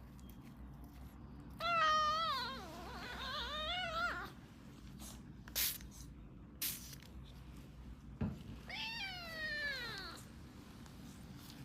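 A young British shorthair kitten meowing twice: first a long meow that wavers up and down in pitch, then a few seconds later a second meow that falls in pitch. A few short clicks or rustles come between the two meows.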